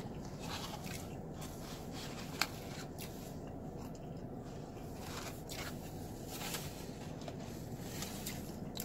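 A person biting into and chewing a soft fried-fish sandwich close to the microphone, with quiet mouth sounds and a few small clicks, the sharpest about two and a half seconds in. A steady low hum runs underneath.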